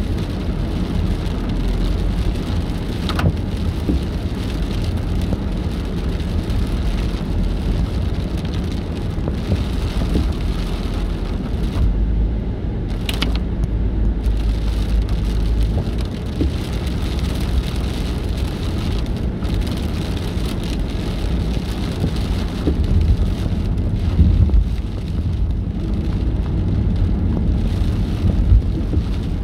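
Rain hitting a car's windshield and roof, over the steady low rumble of the car driving on a wet highway, heard from inside the cabin. A brief sharp click about halfway through.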